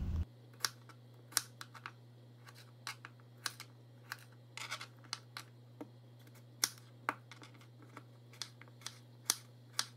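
Kitchen knife chopping cucumber on a plastic cutting board: irregular sharp taps as the blade goes through and hits the board, about one or two a second, over a faint steady low hum.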